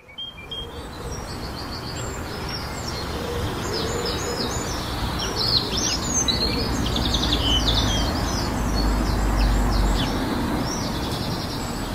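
Several songbirds singing and chirping at once, many short quick chirps and trills overlapping, over a steady outdoor background hiss. It fades in at the start.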